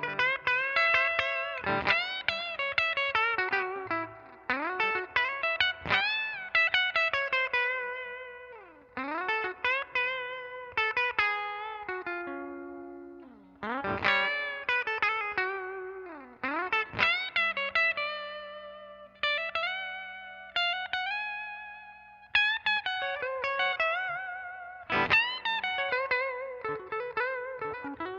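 1981 Greco Super Real EGF-1200 electric guitar, a Les Paul copy, played clean through a blackface Fender Princeton amp: single-note lead phrases with string bends, slides and vibrato. Some notes are left to ring and fade between phrases.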